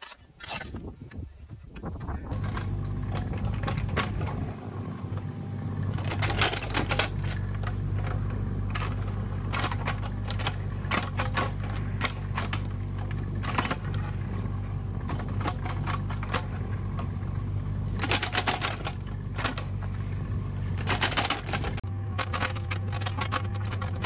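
Mini excavator digging a trench: its engine runs steadily while the bucket scrapes and clicks through dry soil and stones, with busier clusters of scraping now and then. The first couple of seconds are quieter, with only scattered scraping and clicks before the engine sound comes up.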